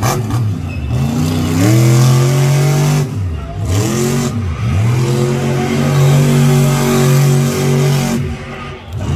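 Monster truck engine revving hard, its pitch climbing and falling again several times as the throttle is worked. It drops off briefly about three seconds in, again about a second later, and near the end.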